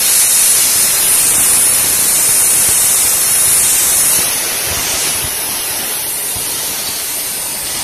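Compressed air hissing out of an air-compressor blow gun aimed at a fidget spinner: one loud, steady blast that starts and cuts off abruptly, easing off slightly in its second half.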